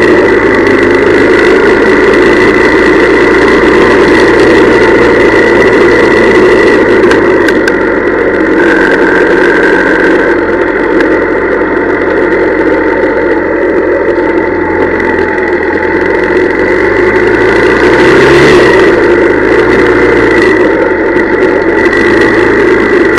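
Honda CL175 motorcycle's parallel-twin engine running loudly and steadily, a little quieter in the middle stretch, with a brief rise and fall in engine pitch about 18 seconds in.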